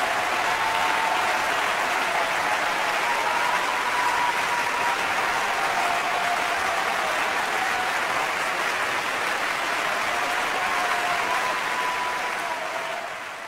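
Audience applauding steadily, with a few thin wavering tones above the clapping, fading out near the end.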